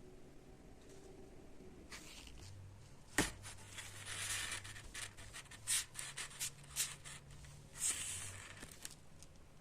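A sharp click about three seconds in, then several seconds of scraping and rustling hand-work noise with scattered clicks, dying away near the end.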